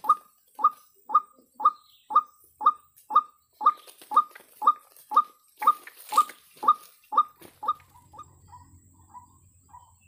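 White-breasted waterhen (ruak-ruak) calling, a loud croaking note repeated about twice a second. About eight seconds in, the calls fall away to fainter, quicker notes over a low hum.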